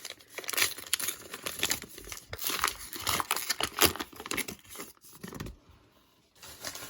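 A trading-card pack's wrapper being torn open and crinkled by hand: a rapid run of crackles that dies down about five seconds in.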